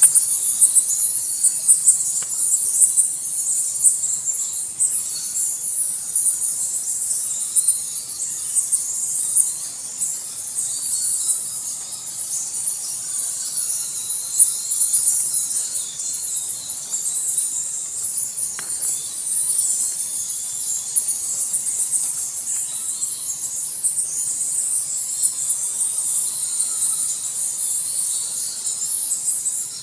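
Dense, steady high-pitched chittering of a bat colony resounding through a cave.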